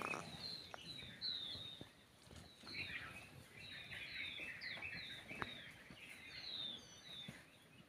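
Small birds chirping faintly: many short, high, quick notes, some slurred, coming one after another, with a few soft clicks among them.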